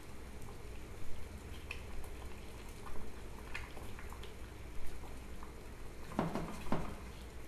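Water boiling an egg in a small stainless-steel saucepan on a gas burner: a steady low bubbling with scattered small pops. Near the end come two brief louder sounds.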